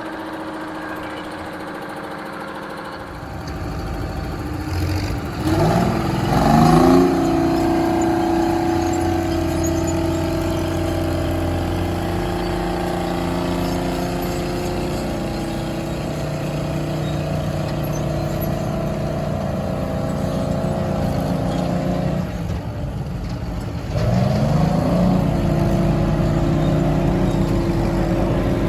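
Detroit Diesel 6-71 two-stroke engine of a vintage Euclid crawler dozer running. It revs up about five seconds in and holds a steady higher speed, drops back briefly about three-quarters of the way through, then revs up again.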